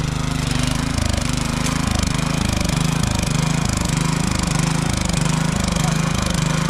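Single-cylinder petrol engine of a walk-behind mini power tiller, running steadily. Its note dips and recovers in a rhythmic pulse about twice a second as the tiller works the soil.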